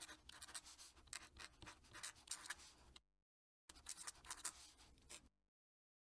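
Fountain pen nib scratching across paper in quick strokes as a cursive signature is written, in two runs with a short break about three seconds in.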